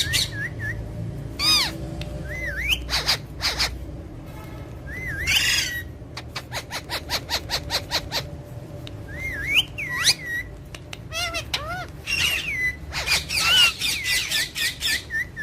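Pet parrots calling: short whistled notes that swoop up and down, harsh squawks, and a fast run of clicking in the middle. The calls come thickest near the end.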